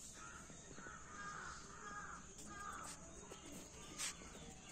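Crows cawing faintly: a run of short calls over the first three seconds, with a brief click about four seconds in.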